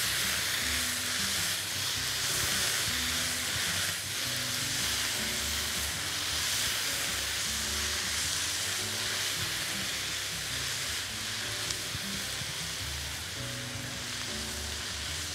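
Beef strips, onions, bell peppers and tomatoes sizzling steadily in a hot wok as they are stir-fried with a wooden spatula. Soft background music with low notes runs underneath.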